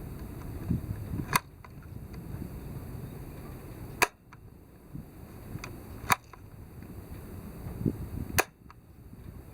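Masudaya Detachable Buffalo toy gun fired with blank caps: four sharp cracks about two seconds apart, with fainter clicks between them.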